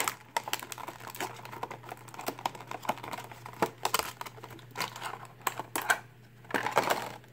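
Clear plastic blister packaging of a boxed action figure crinkling and clicking as hands pull it apart and handle it. It is a quick, irregular run of sharp crackles and taps, over a faint steady hum.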